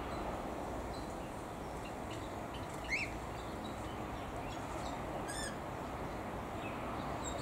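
Aviary birds giving scattered short chirps over a steady low background noise, with one louder rising call about three seconds in and a quick run of high notes a couple of seconds later.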